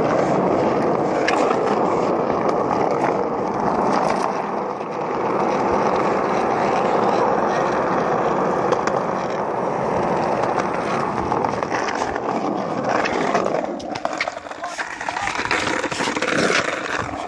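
Skateboard wheels rolling over rough asphalt: a steady rolling noise with a few clicks from the board, dipping and turning uneven near the end.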